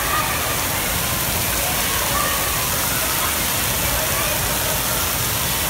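Steady rush of water spraying and falling from a water-park play structure, mixed with the chatter of a waiting crowd.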